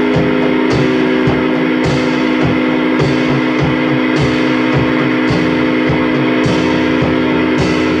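Rock music: guitar strumming and a drum kit keeping a steady beat over a constant drone, the hum of a running vacuum cleaner used as an instrument in the track.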